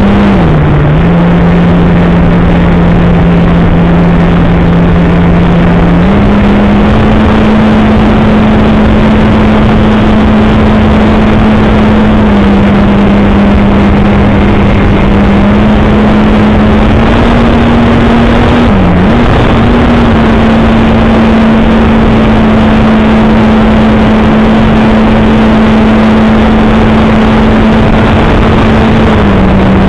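Electric motor and propeller of an FMS Kingfisher RC plane in flight, heard from its onboard camera: a loud, steady drone under heavy wind rush. The propeller hum steps up and down in pitch a few times as the throttle changes, with one brief dip a little past the middle.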